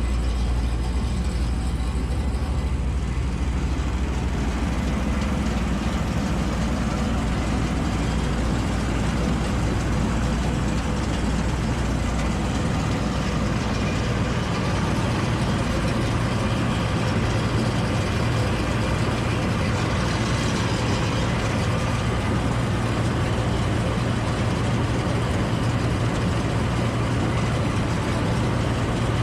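John Deere 955 combine harvester running with its threshing and separating gear engaged, a steady mechanical clatter over a low diesel drone. About halfway through, the low drone shifts higher.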